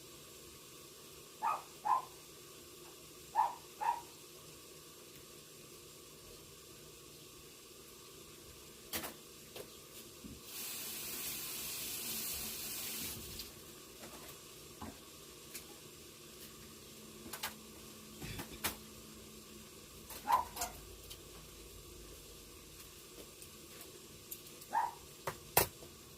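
Covered pan of squash and pork stir-frying with a faint, steady sizzle. About ten seconds in comes a hiss lasting some three seconds, with scattered clicks and a few short high chirps along the way.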